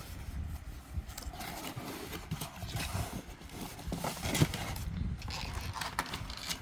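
A cardboard filament box being opened and handled by hand: irregular rustling, crackling and soft knocks, with a few sharper clicks.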